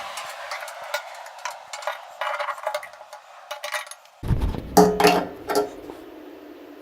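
Hand tools striking metal, a hammer on a chisel chipping hardened JB Weld off a car's steel fuel tank. It is a run of quick light taps and clinks, then a few louder ringing metal strikes about two-thirds of the way in.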